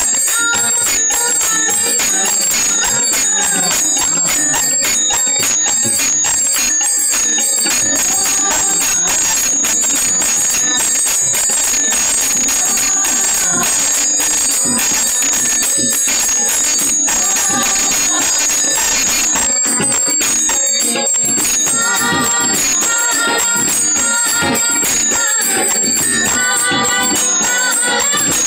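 Live Indian devotional singing (a Marathi abhang): a woman's lead voice, joined by a second woman's voice, over harmonium and drum, with steady, rhythmic bell-like jingling from small cymbals keeping the beat.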